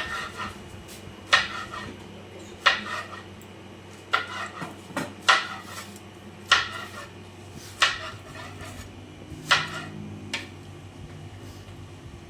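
Kitchenware clinking and knocking: about nine sharp knocks of utensils against dishes or pots, roughly one every second and a bit.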